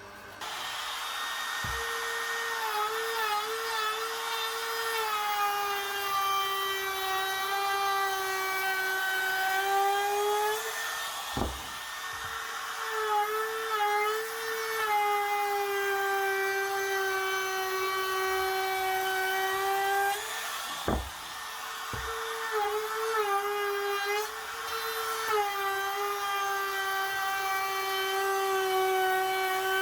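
Electric power tool's motor whining as it cuts wood. Its pitch sags under load through long passes and recovers between them, with sharp clicks at the two breaks.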